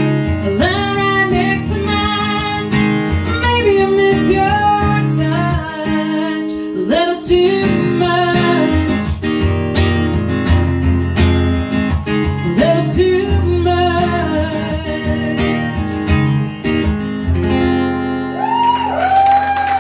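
A woman singing to her own strummed acoustic guitar. Near the end the song closes and the audience begins cheering.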